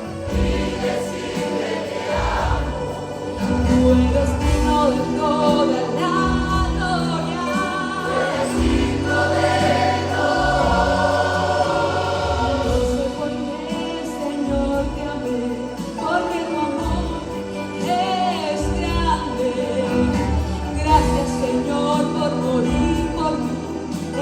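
Choir singing a Spanish-language Christian worship song, recorded live with the room's ambient sound.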